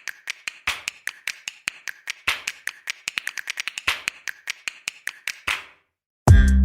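A rapid, uneven series of sharp clicks, about eight a second, stopping about five and a half seconds in. Loud electronic music with a heavy bass starts near the end.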